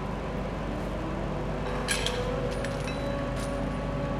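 Steady engine hum of heavy construction machinery, with a sharp metallic clink about two seconds in and a few fainter clinks after it, from steel parts and tools on a steel bridge girder.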